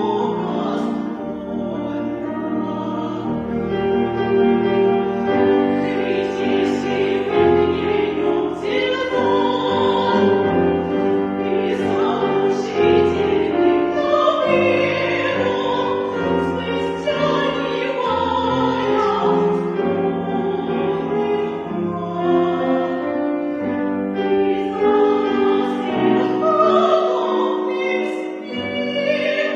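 Classical music with operatic singing, sustained notes sung with vibrato over a held accompaniment.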